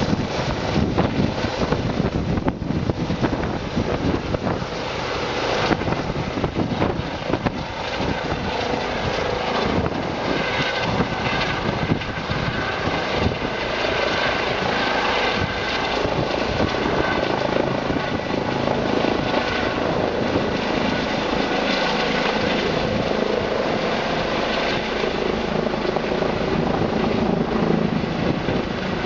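Eurocopter EC135 air-ambulance helicopter lifting off and climbing away overhead: a dense rush of rotor noise with a beating chop and a steady turbine whine.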